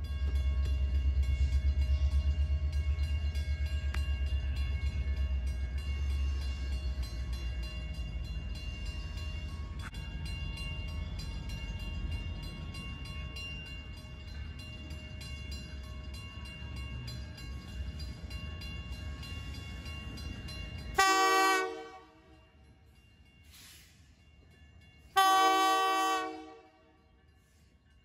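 Diesel locomotive air horn sounding: a short blast about three-quarters of the way through, then a longer blast near the end. Before the horn there is a low, steady rumble with faint steady tones that cuts off abruptly just as the first blast sounds.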